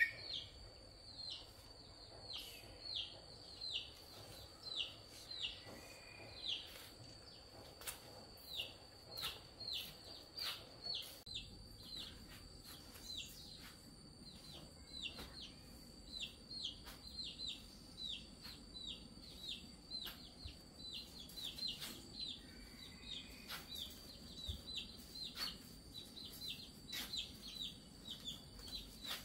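Chicks peeping: a long run of short, high, falling peeps, two or three a second, over a faint steady high-pitched tone.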